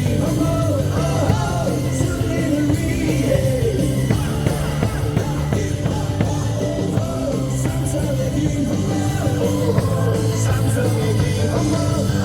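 Loud rock-style cheer music with singing and yells from the stands, played through a baseball stadium's sound system.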